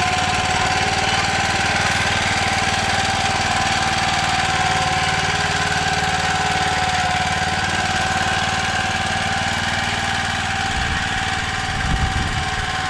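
Motor Sich MB-4.05 walk-behind tractor's petrol engine running steadily, with a steady high whine over it. A few low bumps come near the end.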